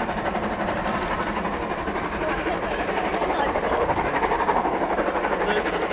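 Steam-hauled train running, heard as a steady rushing noise without distinct exhaust beats.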